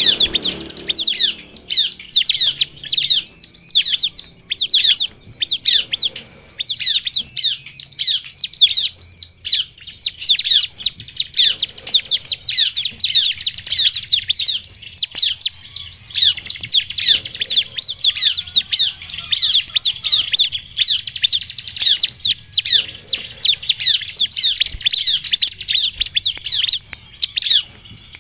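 Bar-winged prinia (ciblek) singing vigorously: fast, near-continuous strings of high, down-slurred chirps with only brief breaks.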